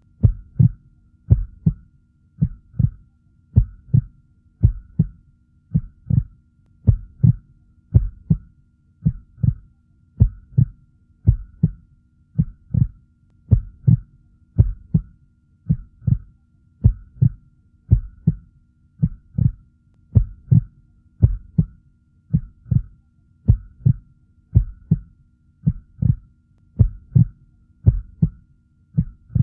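Heartbeat sound effect: a steady, even rhythm of low double thumps (lub-dub) that keeps on without a break, over a faint steady hum.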